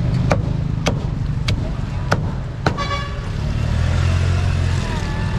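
Cleaver chopping roast pork on a chopping block: five sharp, evenly spaced chops about a second apart, over steady traffic rumble, with a brief horn toot right after the last chop.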